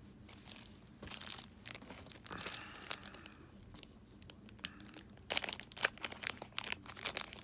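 Foil trading-card pack wrapper crinkling and being torn open. The sharpest crackling comes near the end.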